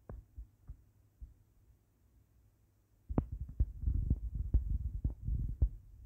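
A few soft clicks, then from about halfway a dense run of low thumps and sharper clicks lasting about three seconds: handling noise from the phone being held and tapped while turning the page.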